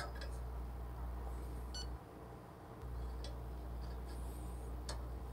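Low steady hum that drops out for a moment about two seconds in, with light clicks of a ceramic cup being set on a coffee scale and one short beep.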